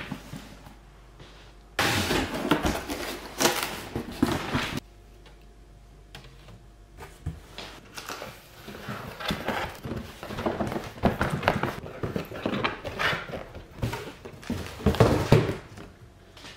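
Cardboard parcel boxes being shifted and handled: a loud scraping stretch starting about two seconds in and stopping sharply some three seconds later, then irregular rustling and knocks through most of the rest.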